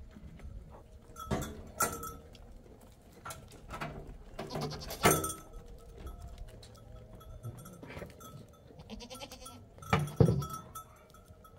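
Goats bleating several times, mixed with sharp knocks and thuds; the loudest come about five seconds in and about ten seconds in.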